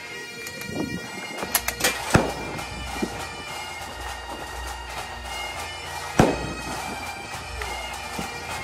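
Bagpipe music with a steady drone, over a few sharp clicks from loading .303 cartridges into a Lee-Enfield No4 Mk1's magazine. The loudest click comes about six seconds in.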